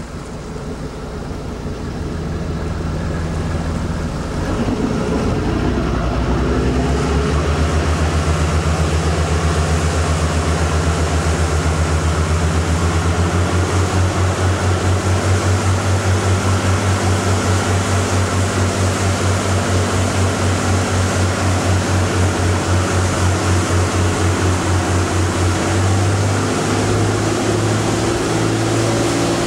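Fishing boat's engine speeding up over the first few seconds, then running steadily at speed with a regular throb, under a hiss of wind and water.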